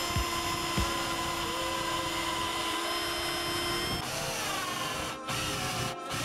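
Electric drill running and boring into plywood, with a steady motor whine. About four seconds in the sound changes, the pitch sliding as a larger bit cuts into the wood.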